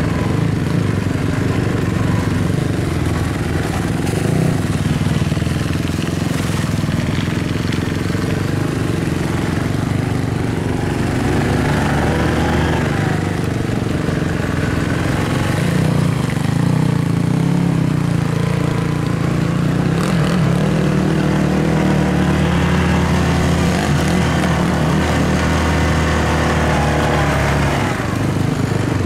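ATV engine running steadily under way on a dirt trail, its revs rising and falling with the throttle.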